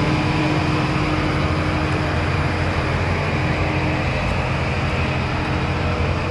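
Towed aircraft ground power unit running steadily: a constant engine hum with a droning tone, over a steady background rush. The droning tone weakens about halfway through.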